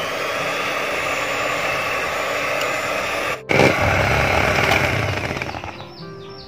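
Electric hand mixer's beaters whipping cream in a plastic bowl, the motor spinning up to a steady whir; it breaks off for an instant about three and a half seconds in, runs again as the cream stiffens, and fades out near the end under soft music.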